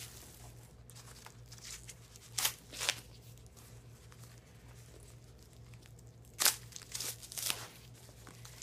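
Plastic wrapping crinkling and tearing in short bursts as it is peeled off a handbag's chain strap. The loudest rips come about two and a half and six and a half seconds in, over a low steady hum.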